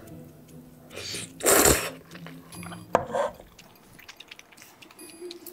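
A person slurping a mouthful of oily aglio e olio noodles, one loud wet slurp about a second and a half in, followed by quieter chewing with a small click.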